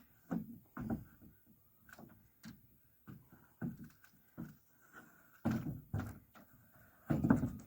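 Irregular thuds and knocks of footsteps on plywood roof sheeting laid over trusses, a dozen or so uneven hits with the loudest ones near the end.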